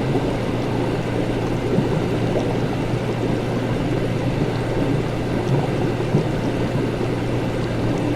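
Laboratory ambience: a steady low machine hum under continuous bubbling, gurgling liquid, with small faint ticks scattered through it.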